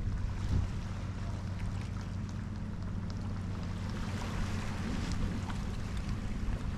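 Small waves lapping and trickling over the stones and rocks of a shoreline, with many small splashes. Under them runs a steady low rumble.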